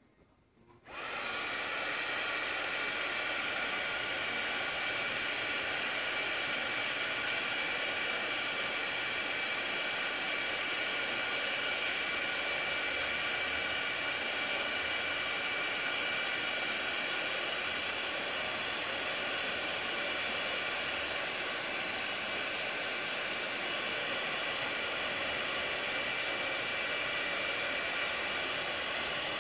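Craft embossing heat gun switched on about a second in, then running steadily: a blowing hiss with a steady high whine as it melts embossing powder.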